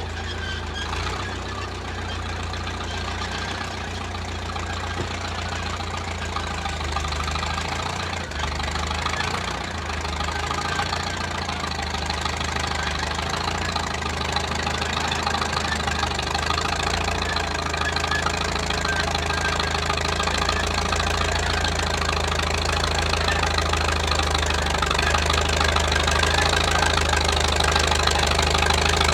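Engine of a 1934 Caterpillar crawler bulldozer running steadily while working, growing gradually louder across the stretch.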